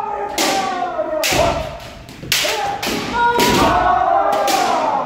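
Kendo sparring: about half a dozen sharp hits of bamboo shinai and stamping feet, with long drawn-out kiai shouts between and over them.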